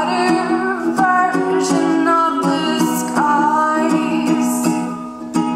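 A woman singing, accompanying herself on a strummed ukulele. Her voice holds and slides between long notes over steady chords, and the strums stand out alone near the end.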